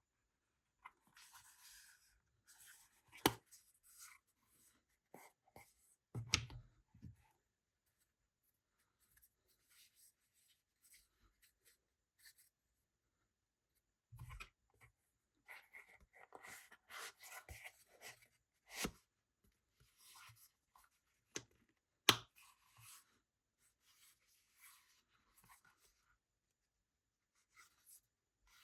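Quiet hand-work noises: intermittent rubbing and scraping, broken by a handful of short sharp knocks or taps, the loudest of them about three, six and twenty-two seconds in.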